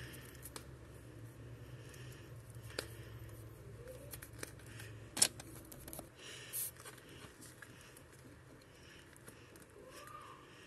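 Plastic action figure being handled: light rubbing and small scattered clicks of its plastic parts, with one sharp click about five seconds in.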